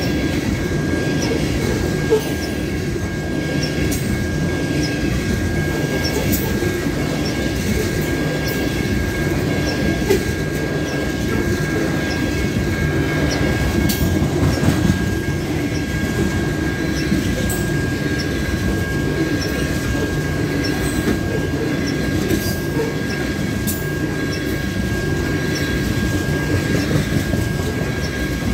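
Coal train's gondola cars rolling past close by: a steady heavy rumble of steel wheels on rail, with scattered clicks and knocks and a thin steady high tone running above it.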